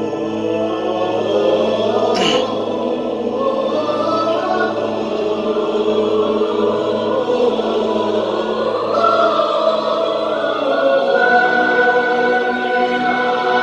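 Choir singing sustained chords with orchestral string accompaniment, echoing in a church.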